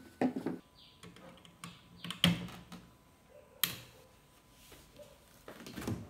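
Scattered clicks and knocks of tools and metal parts being handled on a workbench. The loudest sharp knock comes about two seconds in, and a quick run of taps comes near the end.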